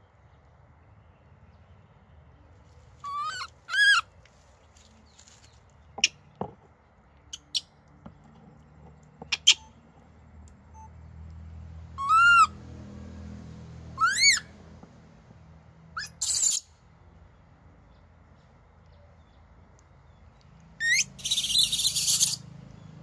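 Baby macaque giving a series of short, high calls, each rising and falling in pitch, with quieter chirps between them, and a longer harsh scream near the end.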